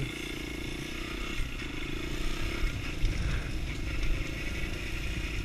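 Sundown STX 200 Motard's single-cylinder engine running at a steady pitch while riding, over continuous hiss of wind and wet road.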